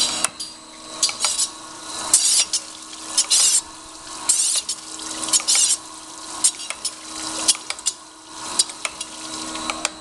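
Herless surface grinder running under power feed: a steady whine from its drives, with short hissing bursts about once a second as the grinding wheel cuts the work.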